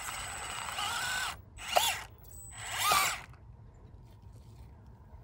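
Electric motor and gear drive of a scale Ford Bronco RC rock crawler whining under throttle. A longer run comes in the first second, then two short bursts near 2 and 3 seconds, each rising and falling in pitch as the throttle is blipped.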